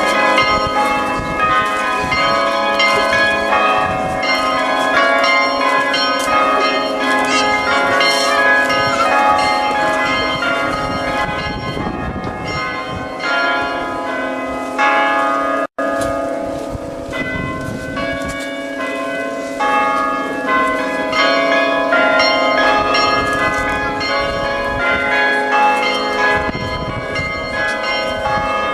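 Orthodox church bells rung together in a continuous peal: quick, overlapping strokes of the smaller, higher bells over the ringing of deeper bells. There is a split-second gap about halfway through.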